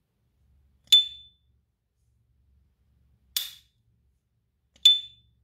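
Silver S. T. Dupont Ligne 2 lighter's lid flipped open twice, each time with its ringing metallic 'ping', about a second in and near the end. In between comes a duller snap without the ring, the lid being shut.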